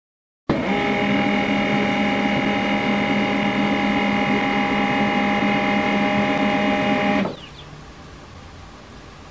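HP LaserJet MFP M141w laser printer's motors running with a steady whir of several constant tones as the printer restarts and initialises. The sound starts suddenly about half a second in and cuts off about seven seconds in.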